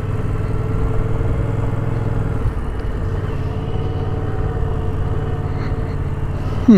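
Yamaha XSR700's 689 cc parallel-twin engine running steadily while the motorcycle is ridden along an asphalt road.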